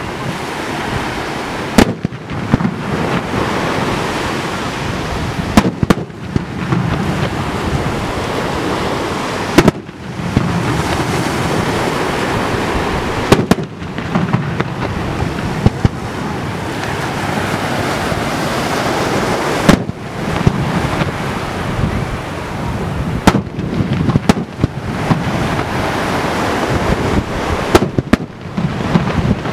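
Aerial firework shells bursting with sharp booms every few seconds, over a steady rushing noise.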